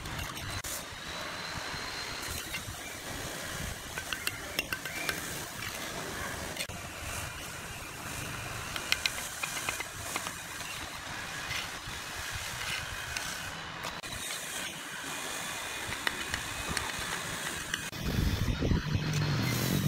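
Steel brick trowel tapping and scraping on bricks and mortar as bricks are laid and bedded: a scatter of sharp clicks and clinks. Near the end a low engine drone comes in.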